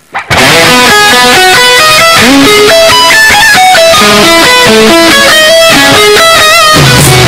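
Instrumental music with a fast melodic lead line, starting suddenly just after the start; a heavier low part comes in near the end.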